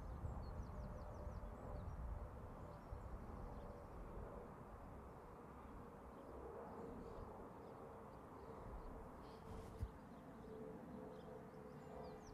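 Faint outdoor background: a low rumble and a faint steady hum, with a few high bird chirps near the start and again near the end, and a single soft bump late on.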